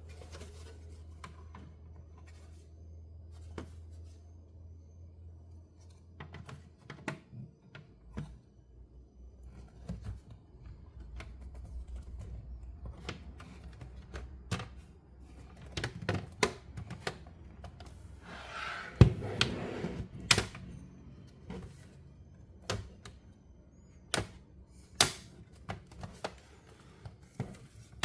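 Irregular clicks, taps and knocks of small plastic and metal laptop parts being handled and fitted during a laptop teardown, with a short scraping rustle and one louder knock about two-thirds of the way through. A low steady hum sits under the first quarter.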